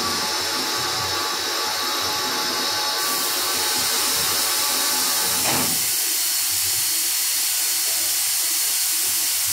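Steam locomotive standing still with steam hissing steadily; the hiss grows brighter and louder about three seconds in.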